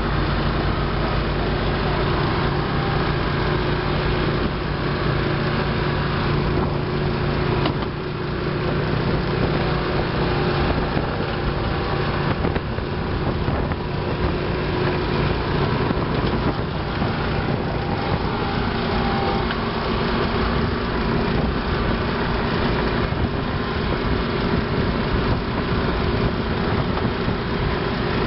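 Running engines droning steadily, with a brief dip in loudness about eight seconds in.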